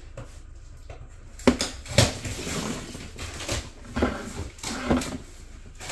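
Hard plastic clacks and knocks from a pink plastic children's potty being handled: its lid lifted and its pull-out bowl drawer slid out. The knocks start about a second and a half in and come irregularly, several in a few seconds.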